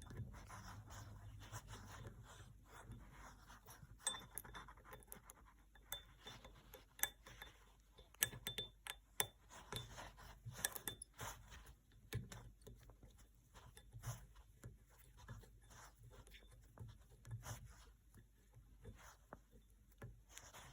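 Faint, irregular metallic clicks and light scraping of an Allen key turning the small set screw in a faucet handle, tightening the handle back on.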